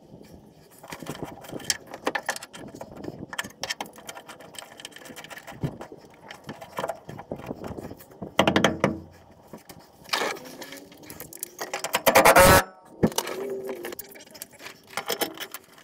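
Clinks and knocks of tools and metal parts being worked on a truck's frame during a fuel pump install, with short runs of rapid clicking. The loudest run comes about twelve seconds in.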